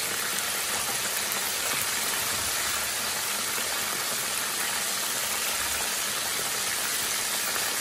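Battered chicken pieces deep-frying in hot oil: a loud, steady sizzling hiss, with the batter still pale early in the fry.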